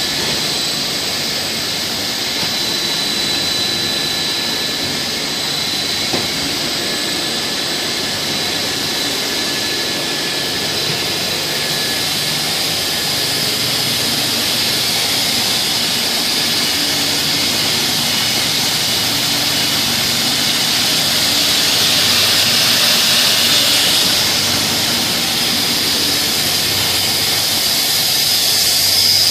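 PVC gasket extrusion production line running: a steady mechanical hiss and whine with faint high steady tones, swelling slightly a little past the middle.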